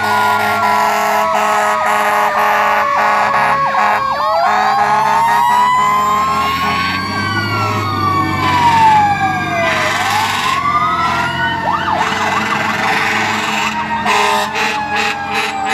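Several fire trucks' sirens sounding at once: one tone falls slowly over the first four seconds, others wail up and down, and a fast yelping sweep comes in about twelve seconds in.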